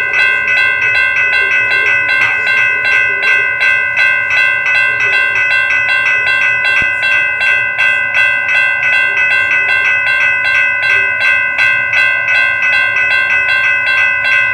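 Railroad crossing bell ringing at an even pace, about three strikes a second.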